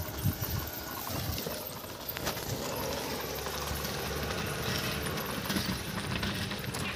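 Wind rumbling on the microphone of a moving camera, with scattered light knocks and rattles from the ride over a rough road.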